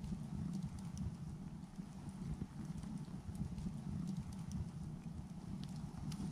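Steady low road rumble of a car driving, with faint scattered ticks.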